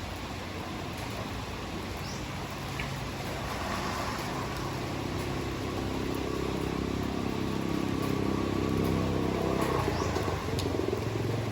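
Steady hard rain, with a motor vehicle's engine approaching and growing louder from about three seconds in, loudest near the end.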